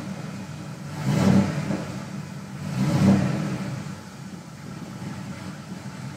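GM LS1 5.7-litre V8 engine blipped twice on the throttle, about a second and three seconds in, each rev rising and dropping back to idle. The engine is misfiring and sputtering without setting a misfire code, which the owner suspects comes from a fouled spark plug.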